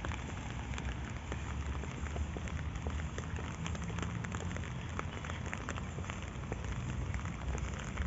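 Rain falling steadily, with many sharp ticks of separate drops landing, over a low rumble.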